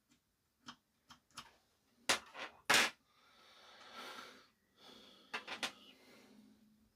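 Hands working on small parts and a tool: a string of light clicks and knocks, two louder ones near the middle, then a scratchy rubbing sound for about a second and a half, then a few more quick clicks.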